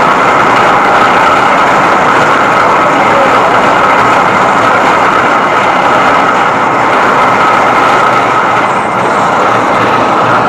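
Engine of a truck-mounted borewell rig running steadily and loudly, with a steady high whine over its noise.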